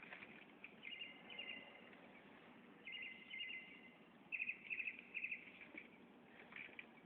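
Northern mockingbird singing: short phrases of high notes, then a run of rapidly repeated notes about four seconds in.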